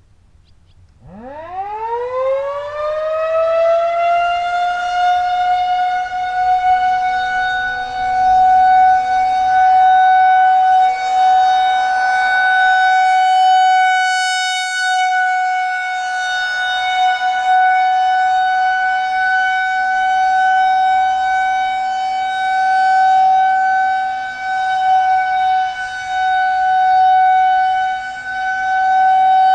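Federal Signal 2001-130 rotating outdoor warning siren sounding the full-alert steady tone. It winds up from about a second in, the pitch climbing quickly and levelling off within a few seconds, then holds one steady pitch whose loudness swells and fades as it rotates.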